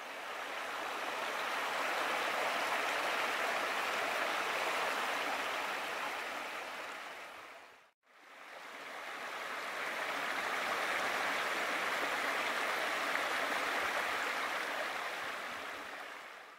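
Steady rushing of a stream's running water, fading out and back in about halfway through.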